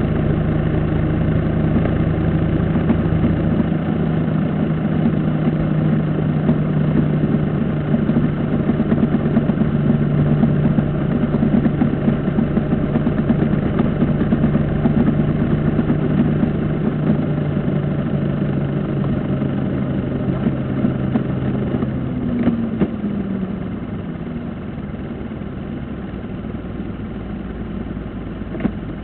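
Motorcycle engine running steadily at road speed with road noise around it; about three-quarters of the way through its pitch falls as the throttle is closed, and it runs quieter as the bike slows in traffic.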